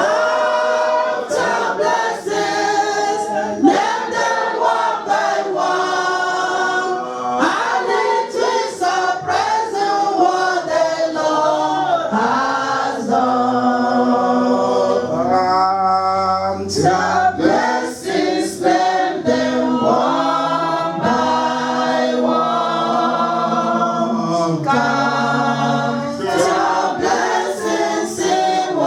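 A choir of several voices singing together, steady and continuous.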